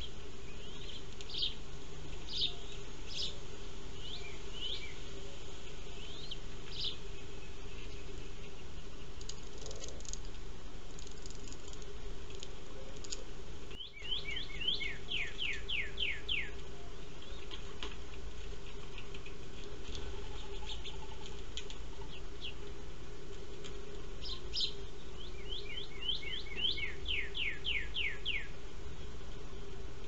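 Small birds chirping with short high calls, and twice a quick run of notes falling in pitch, over a steady low hum.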